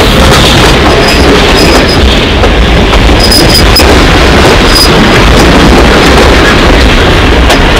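Steam train's tender and late-1800s wooden RPO car and passenger coach rolling past close by: a loud, steady rumble of steel wheels on the rails, with several short high squeals in the first few seconds.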